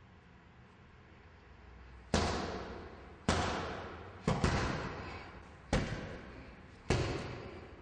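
Punches landing on a hanging heavy punching bag: after about two seconds of quiet, six heavy thuds, two of them in quick succession, each followed by a long echoing fade.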